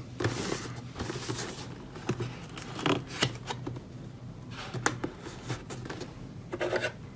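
Cardboard processor retail box being handled and turned on a rubber work mat: rustling and scraping of card with scattered light taps and clicks.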